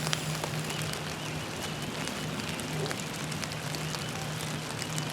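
Steady rain falling, with many small drops ticking close by, over a steady low hum.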